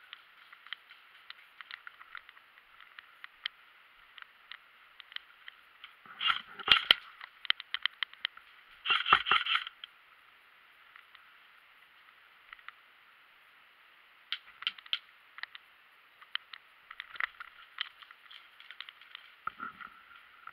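Airsoft gun firing two short bursts of rapid shots about three seconds apart, amid scattered clicks and rattles of gear.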